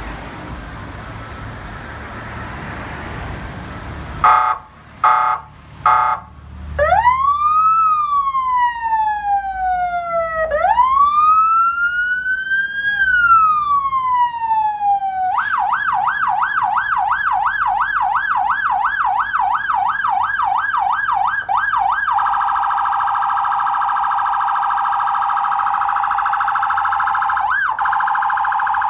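Axixtech electronic vehicle siren cycling through its tones. It opens with three short horn blasts about four seconds in, then a slow wail that rises and falls twice. About fifteen seconds in it switches to a fast yelp of about three sweeps a second, and about twenty-two seconds in to a rapid, shrill warble. The first few seconds hold only a steady hiss.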